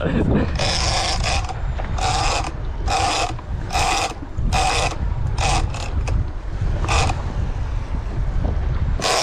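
Shimano Tiagra big-game reel ratcheting in short bursts, about one a second and more spread out near the end, under the load of a hooked striped marlin. A steady low rumble of wind and sea runs beneath it.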